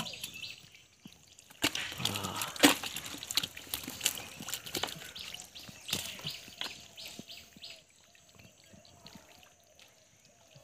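Hands squelching and splashing in soft mud and shallow water as they grope for fish: irregular wet slaps and sloshes that die away near the end.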